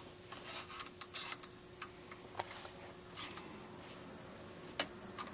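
Faint small metal clicks and scrapes as the screws at the front of a Marlin 1895 lever-action rifle's forend are worked loose and the parts handled, with a sharper click near the end.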